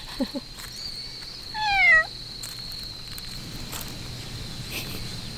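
An orange-and-white domestic cat meows once, a short call that falls in pitch, about a second and a half in.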